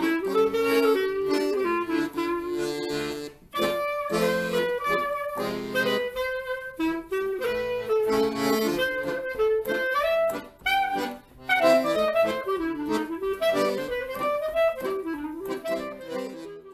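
Clarinet and piano accordion playing a tune together, the clarinet's melody over the accordion's chords, with short breaks between phrases. The music stops near the end.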